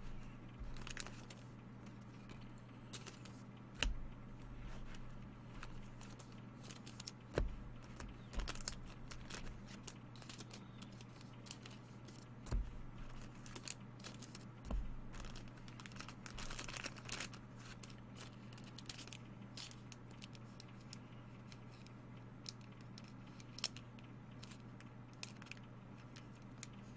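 Trading card packaging being opened and handled: wrapper and cardboard crinkling and tearing, with a few sharp knocks as boxes and cards are set down, over a steady low hum.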